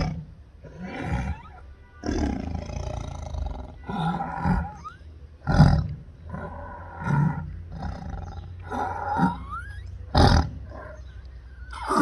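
Tiger roaring over and over in short roars every second or two, with strained, rasping in-breaths between them: the difficulty a tiger has drawing air in when it wants to roar.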